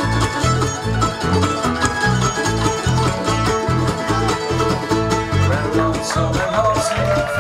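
Live bluegrass band playing an up-tempo instrumental passage: mandolins, banjo and acoustic guitar picking over a steady upright-bass beat, with fiddle. A voice comes in near the end.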